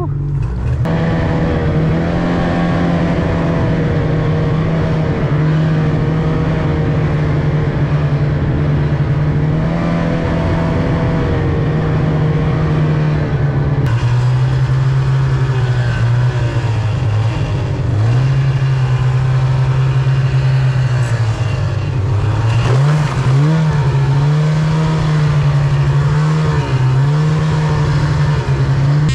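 Mountain snowmobile engine running steadily under throttle, heard close from the rider's seat. Near the end its pitch rises and drops quickly several times as the throttle is worked.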